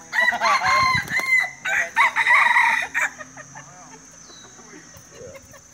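A rooster crowing once, a loud crow lasting about three seconds.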